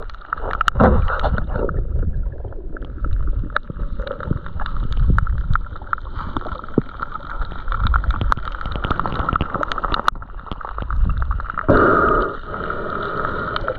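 Muffled gurgling and sloshing of water with many scattered sharp clicks and knocks, as picked up by a camera held in the sea water.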